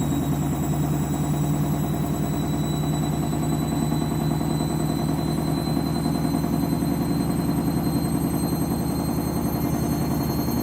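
Candy washing machine on its final spin, ramping up: a steady low rumble of the drum and motor with a high motor whine creeping slowly up in pitch, making a strange noise.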